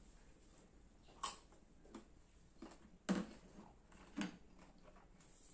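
Crunching while chewing a bite of firm green Indian mango: a handful of sharp, crisp crunches at uneven spacing, the loudest about three seconds in.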